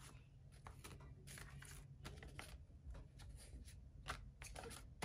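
Faint rustling and flicking of paper banknotes being handled and counted: a string of short, crisp rustles.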